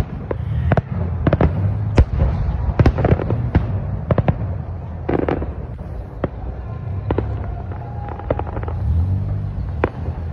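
Fireworks display going off: many sharp bangs and cracks in quick, irregular succession over a steady low rumble.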